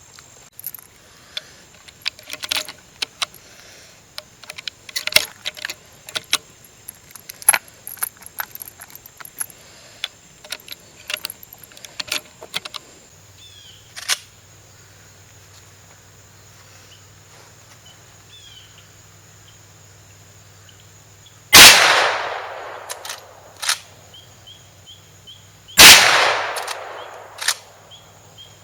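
Two rifle shots about four seconds apart from a Marlin 1894C lever-action carbine firing mild 125-grain .357 Magnum reloads, each trailing off in an echo. Before them comes a long run of light clicks and knocks.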